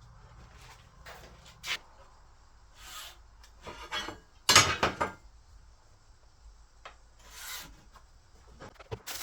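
Irregular bursts of scraping and rubbing with a few sharp knocks, loudest for about a second near the middle.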